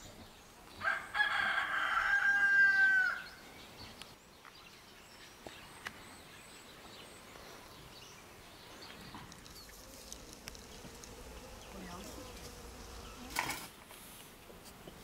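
A rooster crowing once: one call of about two seconds, bending down in pitch at its end, followed by faint background and a brief sound near the end.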